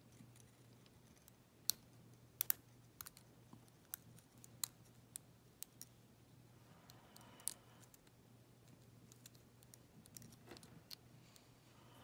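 Lock pick and tension tool clicking against the pins and keyway of an EVVA euro cylinder as it is picked: a dozen or so sharp, irregular metallic clicks, most of them in the first half.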